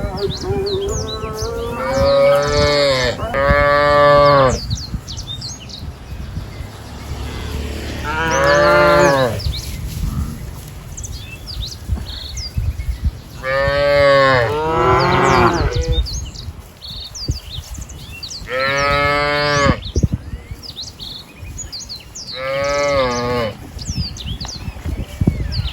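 Cattle mooing: about six long, drawn-out moos a few seconds apart, the first and a later pair coming back to back, with small birds chirping in the background.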